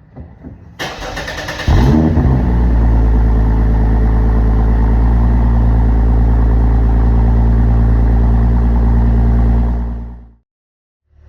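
Lexus IS350's 3.5-litre V6 cranked by the starter for about a second, catching with a brief flare of revs and settling into a steady idle. The sound fades out near the end.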